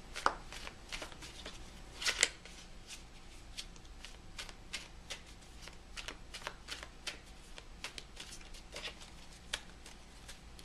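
A deck of tarot cards being shuffled by hand: a run of soft, irregular card slaps and flicks, a few a second, with louder clacks just after the start and about two seconds in.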